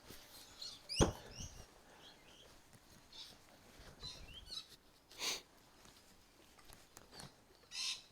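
Handling noises on a workbench: a sharp knock about a second in, a few small high squeaks, and two short rustling swishes later on.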